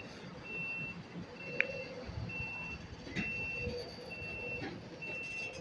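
Freight train starting to back up, a low rumble, under a steady high beep that sounds about once a second, with a sharp click about a second and a half in.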